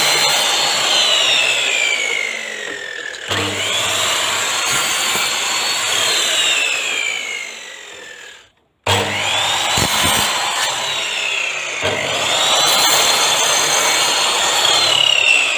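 Electric mitre saw, the TOTAL 10-inch 1800 W model, run up and cutting wood several times in short back-to-back clips. Each time the motor's whine rises quickly as it spins up, then drops slowly in pitch over the rough noise of the cut.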